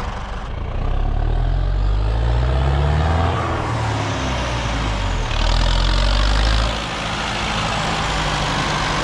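Heavy diesel farm-vehicle engine revving as it pulls away, its pitch climbing over the first few seconds and then easing off. A loud hiss joins for about a second midway.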